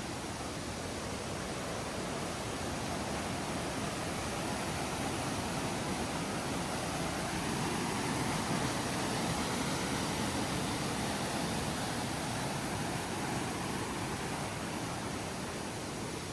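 Rushing water, a steady full rush that grows a little louder midway and eases again toward the end.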